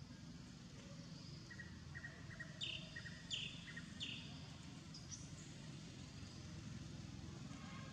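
Outdoor ambience: a steady low rumble with three short, high chirps about two-thirds of a second apart near the middle, and a few fainter high calls.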